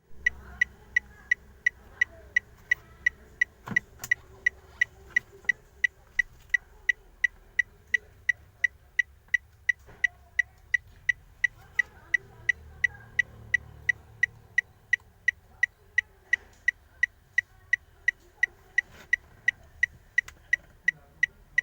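Ford Fiesta turn signal ticking: an even, steady tick-tock at about two and a half clicks a second, over a faint low rumble, with one louder knock about four seconds in.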